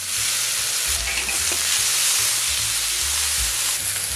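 Shredded cabbage sizzling steadily in a hot wok as it is stir-fried.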